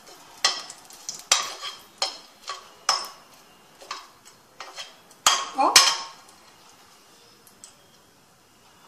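Steel perforated spoon stirring and scraping whole spices in hot oil in a nonstick kadai: a run of sharp scrapes and taps, about two a second, loudest about five seconds in, then stopping for the last few seconds.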